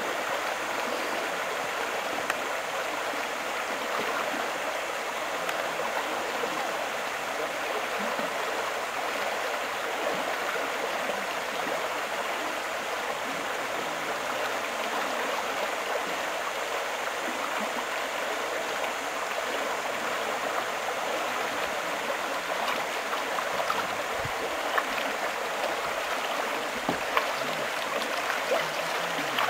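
Rushing water of a small river rapid, a steady hiss. A few faint knocks come near the end.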